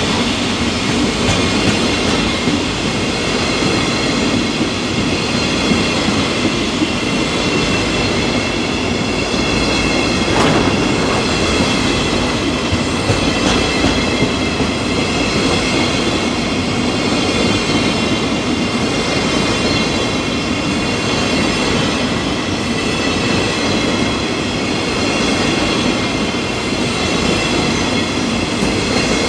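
A freight train of coal hopper wagons rolling past: a steady, loud rumble of wheels on rail with a high, steady ringing whine over it.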